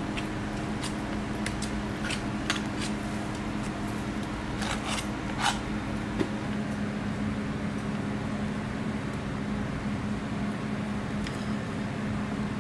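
Steady machine hum with a low held tone, with a few short clicks and scrapes of hands and utensils during the first half as whipped cream is spread on a waffle.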